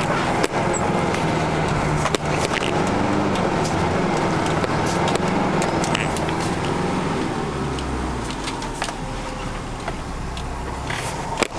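Off-road 4x4 vehicle's engine revving up and down under load as it takes an obstacle with momentum, with scattered knocks and rattles from the vehicle over rough ground. The engine settles to a lower, steadier note about eight seconds in.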